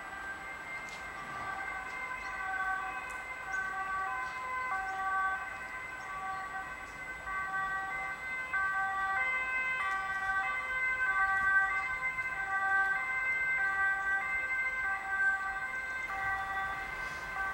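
Two-tone emergency vehicle siren alternating steadily between a high and a low note, growing louder toward the middle.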